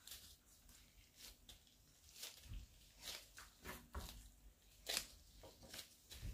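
Faint, irregular squishing and rustling of gloved hands kneading pastry dough on a wooden board, with a few soft thumps as the dough is pressed down.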